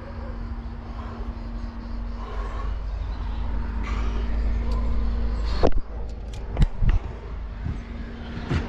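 Low rumble of movement and handling noise on a climber's chest-mounted camera while climbing overhanging rock, over a steady low hum. From about two-thirds of the way in come a few sharp knocks, the last near the end.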